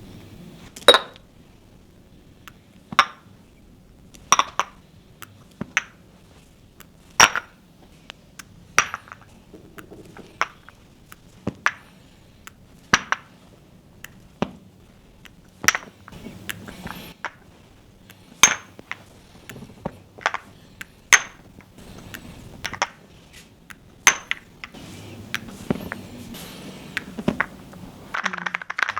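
Copper cupping cups clinking, one short ringing metallic clink about every second and a half.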